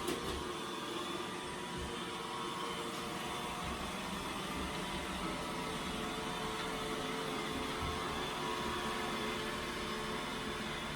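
iRobot Roomba robot vacuum running, a steady motor whir with a constant hum, with one short knock right at the start.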